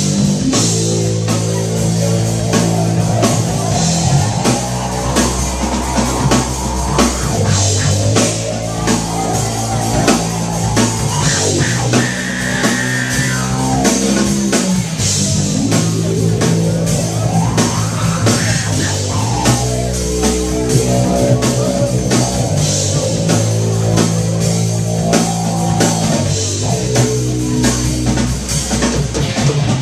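Live rock jam: an amplified electric bass holding long low notes over a drum kit, with pitch slides down and then up a little past the middle.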